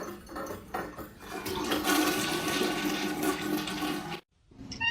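A toilet flushing: rushing water that swells about a second and a half in and cuts off suddenly near the end, after a few light knocks at the start.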